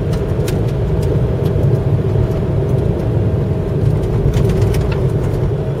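Steady engine and tyre drone heard from inside the cab of an Arctic Trucks 4x4 driving on an unpaved gravel track, with a constant faint whine and scattered short ticks against the body.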